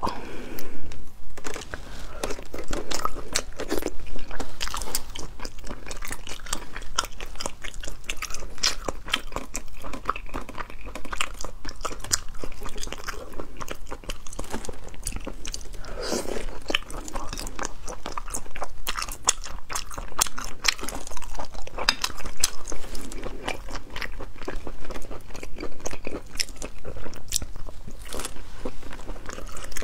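Close-miked eating sounds: dense crunching, biting and chewing with many sharp clicks, as spicy braised sea snails are pulled from their shells by hand and eaten.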